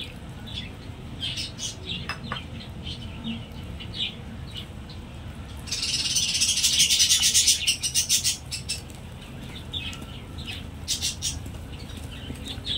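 Small birds chirping in the background, with a louder burst of rapid high chirping lasting about two seconds midway through.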